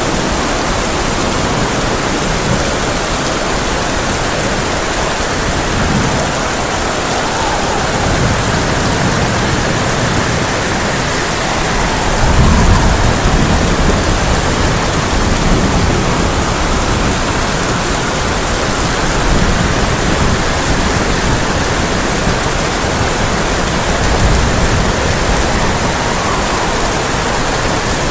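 Heavy rain falling on a tin roof, a steady dense hiss, with a low rumble of thunder swelling about twelve seconds in.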